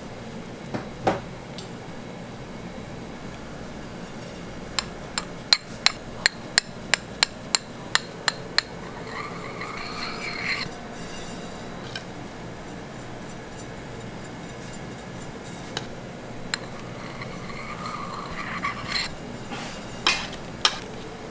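Steel icing spatula at work on a whipped-cream cake: a quick run of about a dozen sharp metal taps, about three a second, then two spells of scraping, each about a second and a half long, as cream is spread and smoothed, with a few more taps near the end.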